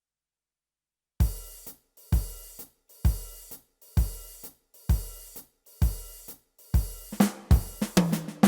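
Yamaha PSR-S670 arranger keyboard style playing its drum part: after a second of silence, a kick drum with a cymbal crash about once a second, turning into a quicker drum fill near the end.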